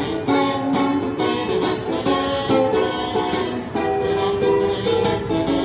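Instrumental music: chords strummed in a steady rhythm on a plucked string instrument, with a melody over them and no singing.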